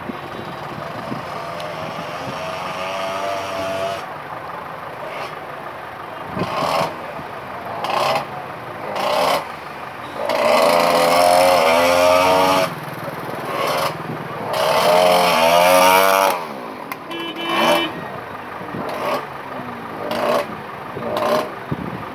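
Road traffic: vehicle engines running close by, with loud passes around the middle where the engine pitch rises and falls.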